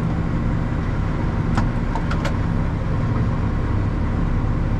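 Valtra tractor's diesel engine running steadily with the PTO engaged, driving a round baler. Two short sharp clicks come about one and a half and two and a quarter seconds in.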